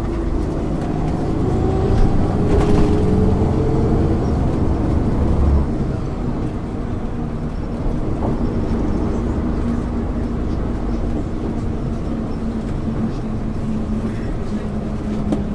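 Engine of a 1999 MAN ÜL 353 intercity bus under way. The pitch rises for about five seconds as the bus pulls, then drops and settles into a steady drone.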